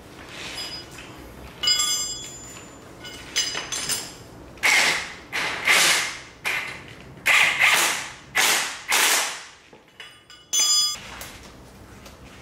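Cordless impact wrench run in short trigger bursts while tightening a steering-knuckle pinch bolt. It whines briefly when spinning freely, then hammers in a string of half-second bursts through the middle.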